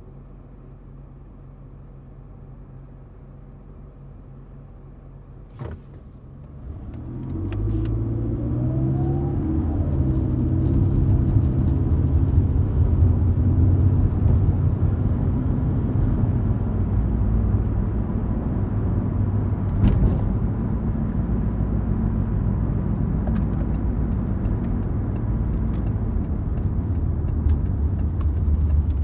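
Sedan idling quietly at a standstill, with a single click about six seconds in. It then pulls away, the engine note rising as it accelerates, and settles into steady driving with engine rumble and road noise.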